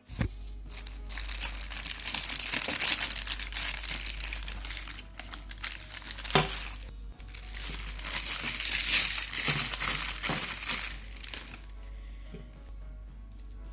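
Crinkly packaging being crumpled and pulled open by hand, in two long stretches with a sharp snap about halfway through; the crinkling dies away near the end, leaving background music.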